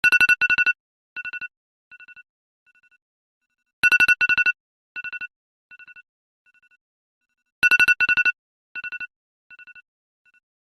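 Mobile phone alarm tone: a cluster of rapid electronic beeps on two pitches, repeated ever more softly like a fading echo. The pattern starts over about every four seconds, three times.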